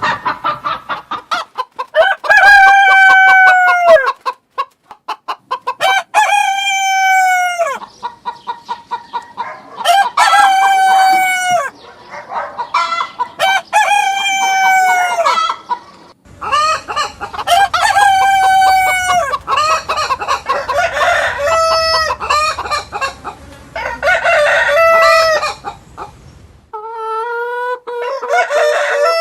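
Roosters crowing: a string of long crows every few seconds, each trailing off at the end. Between the crows, hens make quick clucks.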